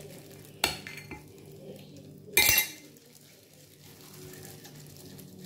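Metal spoon knocking and scraping against a glass jar of marinade: a sharp clink a little after the start, a fainter tap, then a louder clatter about two and a half seconds in.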